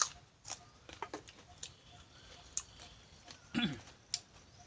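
A person eating with the mouth open: scattered wet lip smacks and mouth clicks while chewing, with one short hum about three and a half seconds in.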